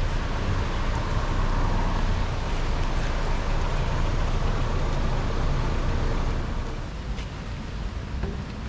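Steady rush of muddy floodwater flowing over a rocky bed, with a low wind rumble on the microphone. The sound drops noticeably about seven seconds in.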